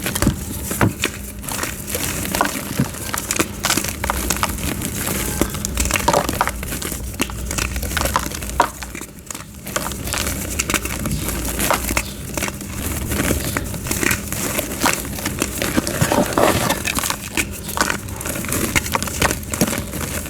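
Soft white gym chalk being crushed and crumbled into powder, a dense run of soft crunches and crackles, with a short lull about nine seconds in.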